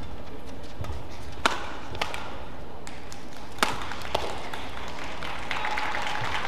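Badminton racket strikes on a shuttlecock: four sharp hits within about three seconds, the first and third the loudest. Near the end the crowd noise rises as the rally ends.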